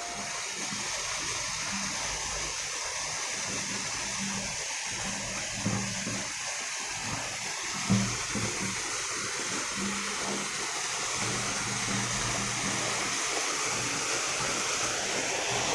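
Waterfall water rushing with a steady hiss, with a faint low hum that comes and goes and two soft knocks about a third and halfway through.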